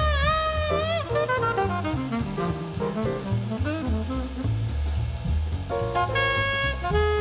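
Background jazz music: a saxophone melody with a walking bass and drum kit.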